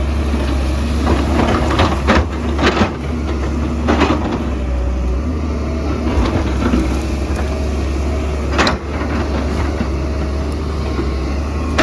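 Excavator's diesel engine running steadily at a deep drone, with several short crunching bursts of the bucket working rock and soil, the sharpest about three-quarters of the way through.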